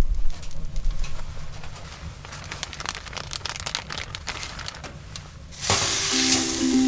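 Faint crackling and sizzling of French toast frying in a campfire frying pan on a wood stove, with scattered small clicks. Ukulele music comes in near the end.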